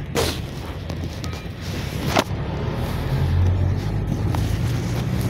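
A GAZelle Next minibus's engine and running gear rumbling low and steady, heard from inside the passenger cabin while moving, with two sharp knocks about two seconds apart.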